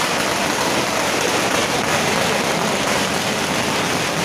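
A long string of firecrackers going off in continuous dense crackling, steady and loud throughout, with no break.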